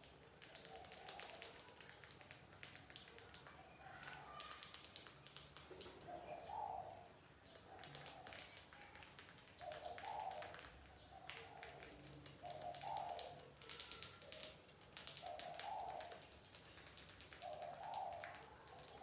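Faint dove cooing, one short call every two to three seconds, over a scatter of small quick clicks and ticks.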